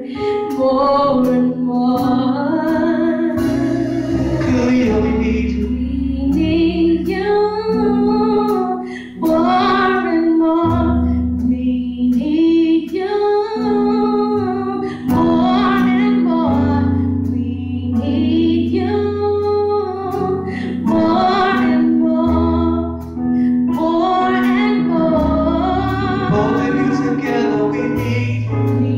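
Female vocalists singing a gospel song into microphones, over an accompaniment of long held bass notes that change every few seconds, with scattered sharp percussive clicks.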